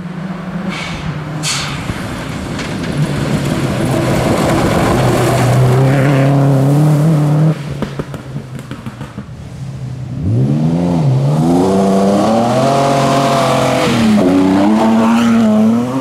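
Rally cars at full throttle on a dirt forest stage. First a Subaru Impreza's flat-four engine approaches and holds a steady, loud note, cut off abruptly about halfway through. After a short lull a second rally car accelerates hard, its engine note rising through the gears with one gear change shortly before the end.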